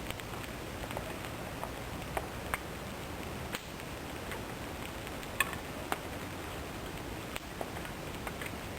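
Campfire burning damp wood, crackling and spitting: irregular sharp pops over a steady low hiss. The spitting and sizzling come from the moisture in the damp wood.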